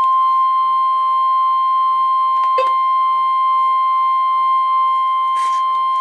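NOAA Weather Radio's 1050 Hz warning alarm tone: one steady, unbroken high beep held at a constant pitch, the signal that a warning broadcast is about to follow.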